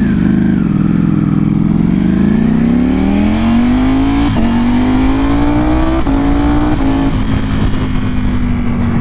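Ducati Panigale V4R's 998 cc V4 engine through an Akrapovic exhaust, accelerating hard. It revs up for about four seconds, then upshifts three times in quick succession, with a sharp drop in pitch at each shift, before settling into a steady cruise.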